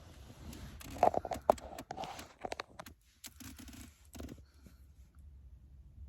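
A flurry of sharp clicks, taps and scratching, loudest about a second and a half in, with a second shorter flurry just past three seconds.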